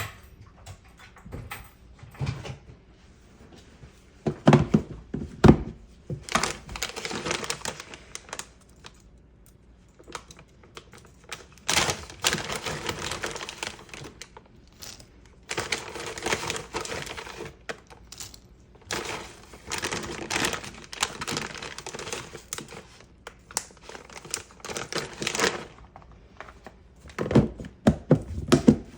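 Crinkling, rustling handling sounds in several stretches of one to three seconds each, with a few heavy thumps about four to six seconds in and again near the end.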